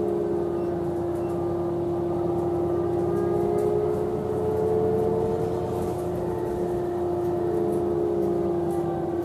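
2007 New Flyer DE40LF diesel-electric hybrid bus running, its Cummins ISL diesel drone under a steady whine from the Allison EP40 hybrid drive. A second, higher whine rises in pitch a few seconds in, falls back, and returns near the end.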